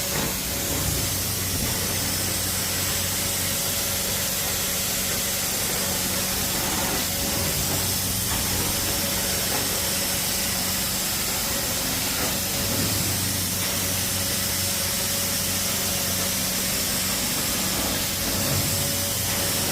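Hot-water carpet extraction machine running steadily while the wand cleans the carpet: a constant hiss of spray and suction over a low, even hum.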